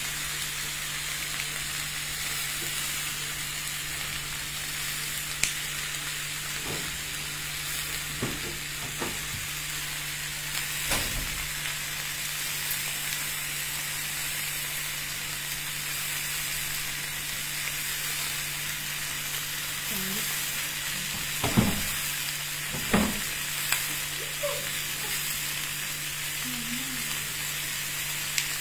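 T-bone steaks sizzling steadily in a ridged grill pan on a gas stove, over a steady low hum. A few short knocks come and go, the two loudest close together a little past two-thirds through.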